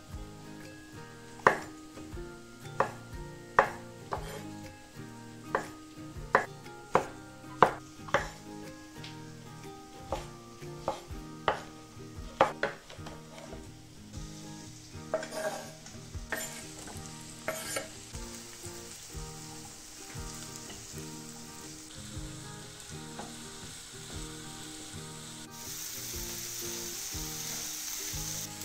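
About fourteen sharp knocks, roughly one a second, fill the first half. Then sliced onions and mushrooms sizzle as they fry in a non-stick frying pan and are stirred with a spatula. The sizzle grows louder and brighter near the end.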